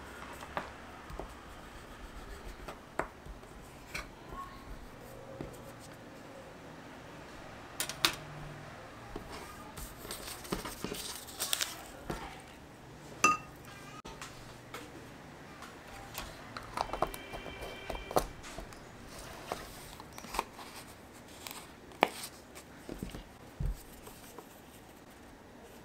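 Hand-work on a bookbinding headband of twine and a paper strip on a wooden tabletop: scattered light taps, clicks and paper rustles as the strip and cord are handled and folded.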